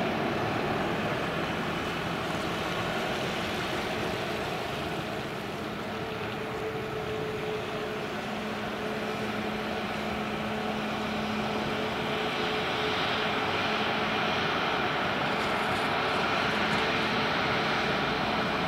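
Jet engines of a Ryanair Boeing 737 running at low taxi power: a steady rushing noise with a low, even hum, growing slightly louder toward the end.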